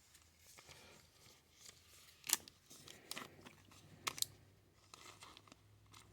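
Faint rustling of a plastic card sleeve and trading cards being handled, with a few sharp little clicks, the loudest about two seconds in and two more near three and four seconds.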